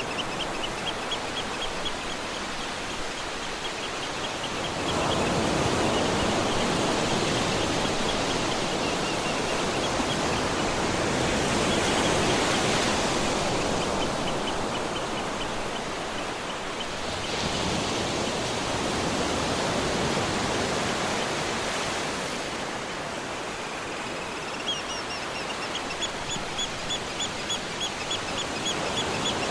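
Heavy rain falling steadily, swelling louder at times. Small birds chirp over it in quick runs of repeated short, high notes at the start and again near the end.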